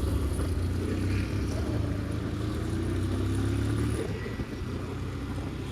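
TVS Apache RTR 180's single-cylinder engine running while the bike is ridden: a steady low engine hum whose pitch rises over a couple of seconds, then drops off about four seconds in.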